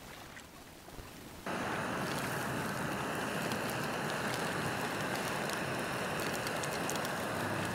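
A piece of fish frying in hot oil in a small pan on a gas-canister camp stove: a steady sizzle that starts suddenly about a second and a half in.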